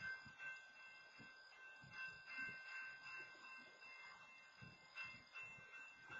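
Grade-crossing warning bell sounding faintly and without a break as the crossing arms stay down for a stopped freight train, with faint irregular low rumbling underneath.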